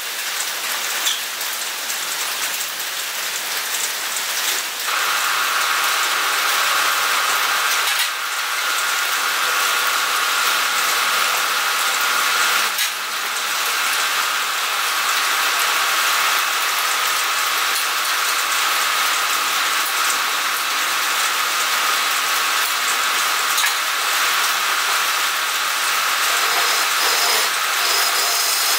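Wood lathe starting up about five seconds in and running with a steady whine over a constant rain-like hiss, with a couple of knocks. Near the end a turning tool starts cutting the spinning wood blank.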